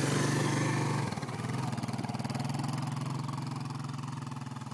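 Small gasoline engine running steadily, settling slightly lower about a second in.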